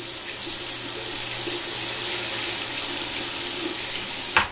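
Steady rushing, rustling noise right against the microphone, ending in a sharp knock: something rubbing close on the mic.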